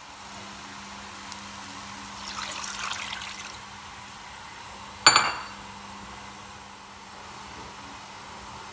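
Water poured into a pot of raw chicken pieces and onion for about a second, then a single sharp clink a couple of seconds later, over a steady low hum.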